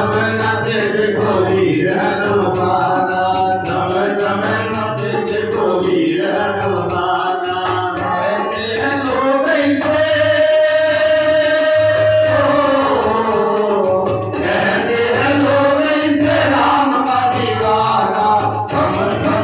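Two men singing a Hindi devotional bhajan through microphones over a regular percussion beat with some jingling, holding one long note about halfway through.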